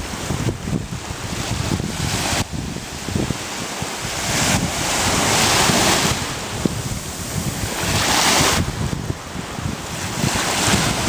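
Small waves washing onto a sandy beach, the surf rising and falling every few seconds, with wind rumbling on the microphone.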